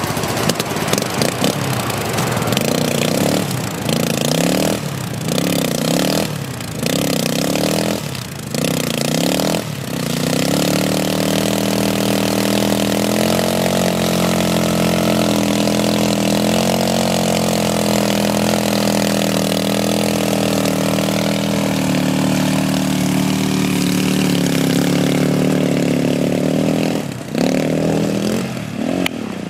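Triton 450 quad bike's engine revved up and down about once a second for around ten seconds as the quad works through deep mud, then held at a steady speed, its pitch slowly rising later on.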